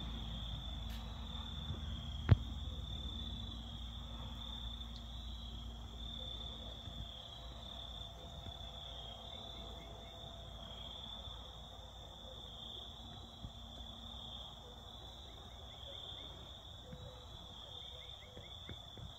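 Insects trilling steadily at a high pitch, over a low rumble that fades away over the first several seconds. A single sharp click sounds about two seconds in.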